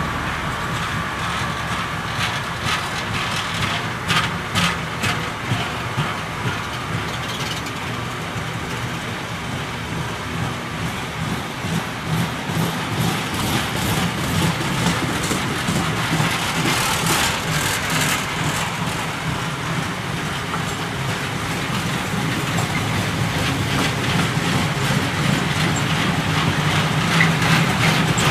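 A long freight train of bulk powder tank wagons rolling past: a steady rumble of wheels on rails, with clusters of clicks and clatter a few seconds in and again around the middle, growing somewhat louder near the end.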